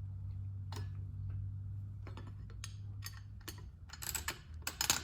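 Light metallic clicks and clatter from handling a bicycle rear sprocket and its mounting bolts while fitting them onto an aluminum hub mount, spaced out at first, then a quicker, louder cluster near the end.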